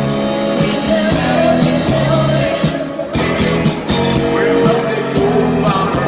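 Rock band playing live: bass, drums, acoustic and electric guitars, with a steady drum beat.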